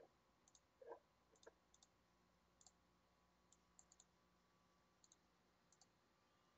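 Faint computer mouse clicks, about ten of them scattered over the first six seconds, several in quick pairs, against near silence.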